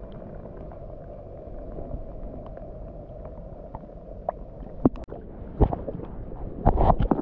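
Rain pattering steadily on the lake surface and the kayak, a constant hiss with small ticks of drops. In the second half, several sharp splashes and knocks as a small hooked fish is pulled from the water by hand and swung up beside the kayak.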